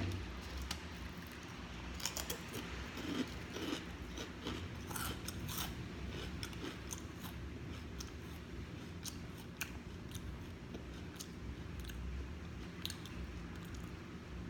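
Close-miked chewing and crunching of potato chips, with many short crisp crackles scattered throughout.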